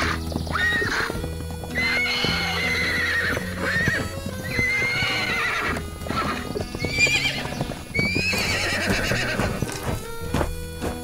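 Cartoon horse whinnies, about five wavering neighs one after another, over steady background music, with hooves clopping near the end.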